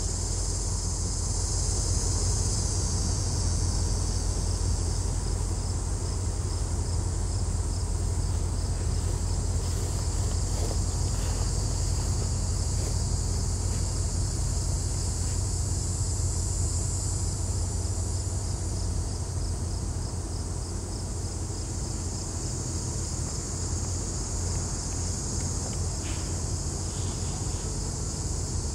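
Insects chirping steadily in a high, pulsing band over a low, steady rumble from diesel freight locomotives approaching slowly along the yard track.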